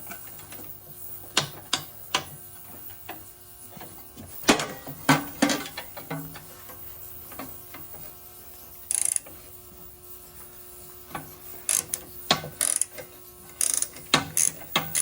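Ratchet wrench clicking in short runs as bolts are worked loose, with scattered knocks and clanks of metal tools on metal. A brief fast run of ratcheting comes about nine seconds in, and a cluster of clanks near the end.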